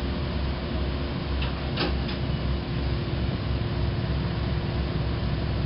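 Machinery running steadily with a low rumble and a constant hum, with one sharp metallic knock about two seconds in.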